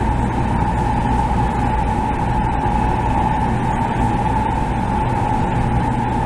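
Cabin noise of a THSR 700T high-speed train running through a tunnel: a steady rumble with a constant high hum over it.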